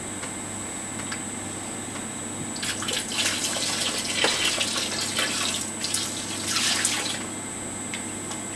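Beef stock poured from a stainless steel pan into a kettle of stew, splashing into the liquid from about two and a half seconds in until about seven seconds, over a steady low hum.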